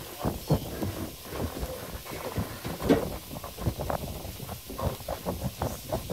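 Metal takoyaki pick tapping and scraping against a takoyaki pan as the balls are turned: a quick, uneven run of small clicks with one sharper knock about three seconds in, over a low background rumble.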